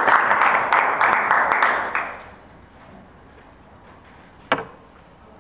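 Audience applause that dies away about two seconds in, then a single sharp knock in a quiet lecture theatre.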